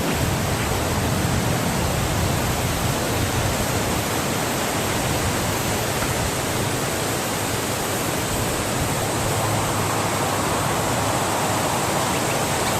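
Steady wind blowing, an even rushing noise without gusts or breaks.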